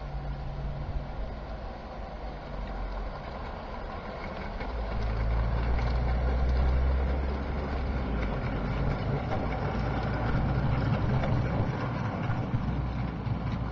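Electric O gauge model locomotive and goods wagons trundling along outdoor track, a steady low rumble that swells as the train passes close about five seconds in, followed by a rattle of many small clicks from the wheels on the rails.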